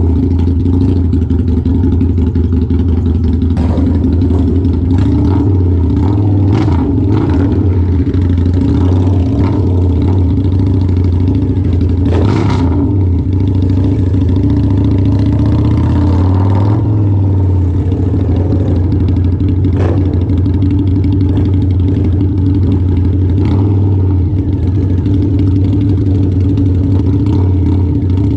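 Harley-Davidson V-Rod's V-twin engine running steadily near idle, close by, with a few short sharp cracks and clatters scattered through.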